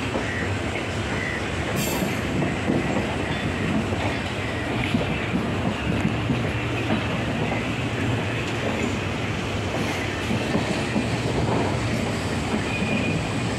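Passenger train running through a rail yard, heard from aboard: a steady rumble of the coaches with wheels clacking over the rail joints, and a few short, faint wheel squeals.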